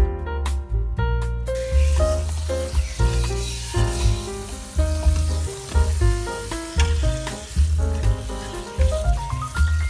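Tap water running into a sink as raw squid are rinsed by hand in a plastic colander, a steady hiss starting about a second and a half in. Background piano music with a bass line plays throughout and is the loudest sound.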